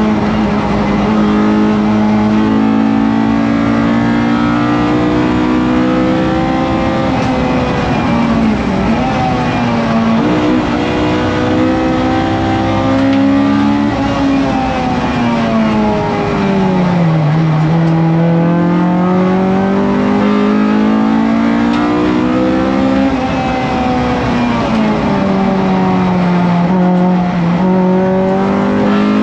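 Honda B18C four-cylinder VTEC engine of a racing Civic heard from inside the cabin, at high revs under hard driving, its pitch climbing and dipping with throttle and gear changes. About halfway through the pitch falls a long way, then climbs again.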